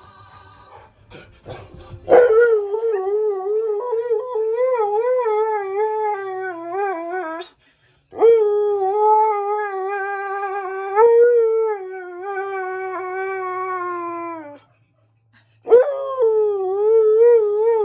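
Husky-malamute cross howling: three long howls, each wavering up and down in pitch, the first beginning about two seconds in.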